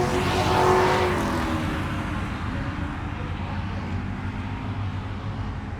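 A motor vehicle driving past, its engine loudest about a second in and then fading away as its pitch drops slightly.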